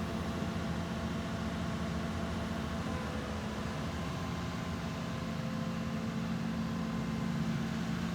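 Excavator's diesel engine running steadily with a constant low hum.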